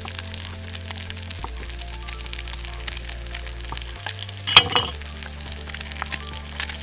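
Trout fillet frying skin side down in a pan, a steady crackling sizzle. A single sharp knock with a brief ring about four and a half seconds in, over soft background music.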